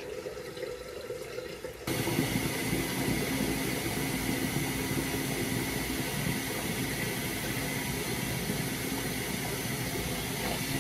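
Bathroom tap turned on about two seconds in, water then running steadily into the sink.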